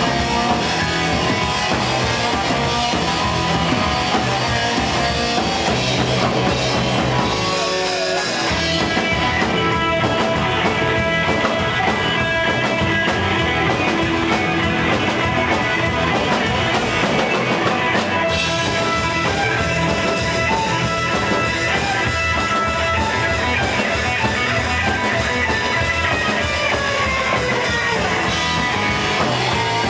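Live rock band playing loudly: electric guitar, upright bass and drum kit, with the low end dropping out briefly about eight seconds in.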